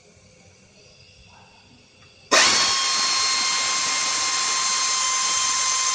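Handheld power tool starts up about two seconds in and runs steadily at one speed with a constant whine.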